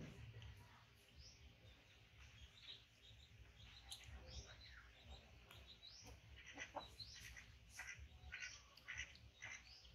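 Faint small-bird chirps, short and scattered, coming more often in the second half, over a low rumble.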